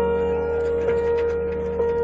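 Soft instrumental background music: a held low tone under a steady mid-range note, with new notes struck about once a second.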